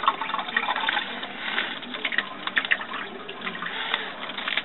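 Aquarium filter outflow splashing into the tank water: a steady trickling splash with many small irregular crackles.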